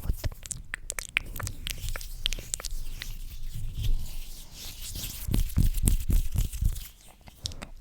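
Close-miked ASMR mouth sounds: a run of wet, sticky clicks and smacks, with some low rubbing noise in between.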